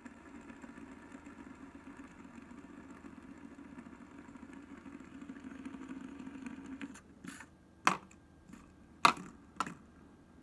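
Yellow plastic fidget spinner whirring steadily as it spins on its ball bearings flat on a wooden tabletop, stopping abruptly about seven seconds in. Then a handful of sharp clacks as the spinner is batted by a cat's paw and knocks against the wood.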